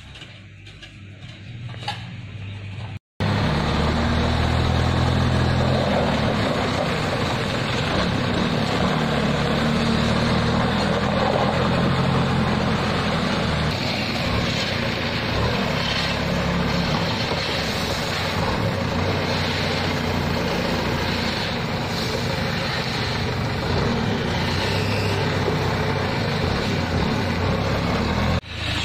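Heavy road-construction machine engine running steadily, starting suddenly about three seconds in after a brief break.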